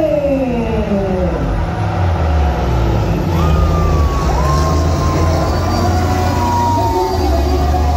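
Diesel semi-trucks, one a Kenworth T800, launching at full throttle in a drag race, the engine notes falling in pitch in the first second or so. From about three seconds in, long air-horn tones sound over the engines.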